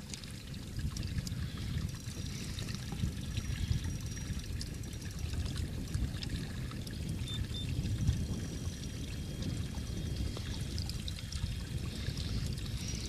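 Water lapping and splashing against the hull of a small boat, over a steady low rumble of wind on the microphone.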